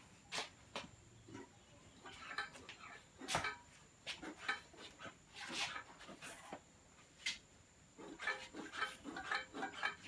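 Bee hive smoker's bellows being worked, giving a series of short breathy puffs of air through the smouldering orange-peel fuel, with clicks and rattles as it is handled.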